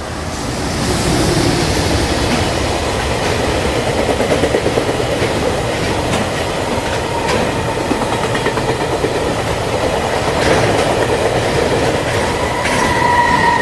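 Train sound effect of a freight train rolling past: a steady rumble and clatter of railcars with scattered wheel clicks, swelling in the first second. A steady high-pitched tone comes in near the end.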